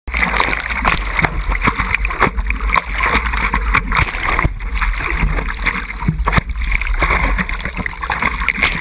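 Seawater splashing and washing over the nose of a surfboard as it is paddled, a continuous choppy rush with many small sharp splashes from the hand strokes.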